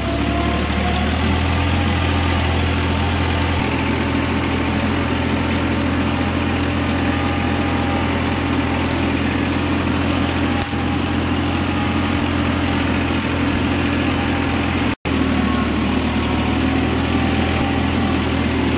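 Farmtrac 45 tractor's three-cylinder diesel engine running steadily under load while it pulls a disc harrow through dry soil. The sound cuts out for an instant near the end.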